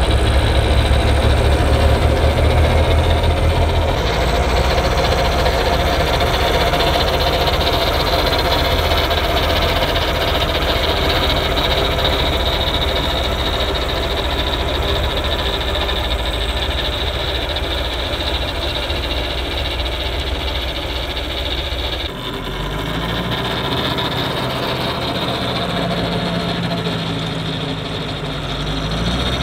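New Holland L85 tractor's turbo diesel engine running under load, driving a PTO-driven two-stage snowblower that is throwing wet snow. The steady drone shifts abruptly twice, and a wavering pitch comes in during the last few seconds.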